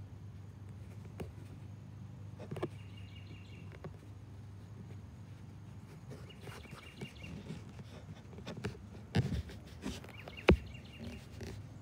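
Outdoor street ambience: a steady low hum with faint repeated bird chirps, broken by a few sharp knocks. The loudest knock comes about ten and a half seconds in.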